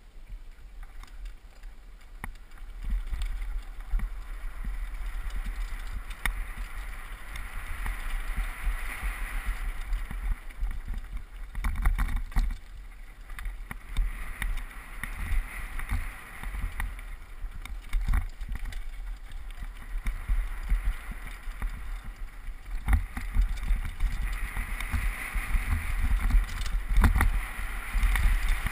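Downhill mountain bike riding fast down a dirt and gravel trail: tyres rolling over loose ground, wind rumbling on the GoPro's microphone, and frequent sharp rattles and knocks from the bike over bumps.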